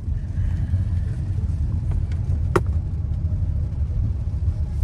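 Car driving on a wet road, heard from inside the cabin: a steady low rumble of engine and road noise, with a single sharp click about two and a half seconds in.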